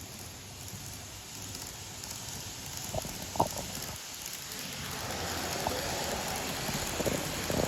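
Model train running on its track: a rattling hiss that grows louder about five seconds in, with a few sharp clicks. The motor is one the owner says has started making an abnormal noise.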